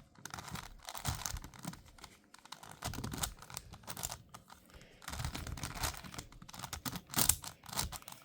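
5x5 Rubik's cube layers being turned in quick runs, a rapid stream of plastic clicks and clacks with short pauses between bursts, as the edge-parity algorithm is executed.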